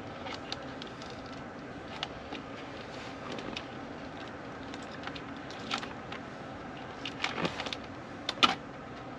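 Thin control wires being handled and pulled inside a generator's control panel: scattered small clicks and rustles, a cluster of louder clicks near the end, over a steady low background hum.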